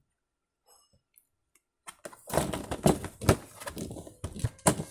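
About two seconds of near silence with a few faint ticks, then a dense run of crackling and clicking from a clear plastic blister pack being worked open to free a toy monster truck.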